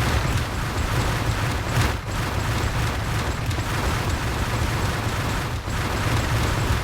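Vacuum cleaner running: a steady rushing noise with a heavy low rumble.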